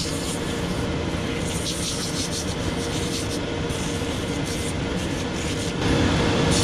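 A shoe-repair finishing machine runs steadily, its motor and dust extraction making a continuous mechanical whir. Short bursts of hiss come at irregular moments as the sandal's old sole is ground against the sanding wheel. The sound gets louder near the end.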